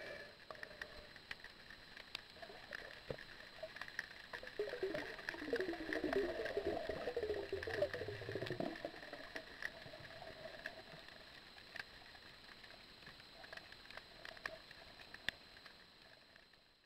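Underwater ambience: a steady hiss scattered with sharp clicks, and a louder stretch of wavering, warbling tones from about four and a half to nine seconds in.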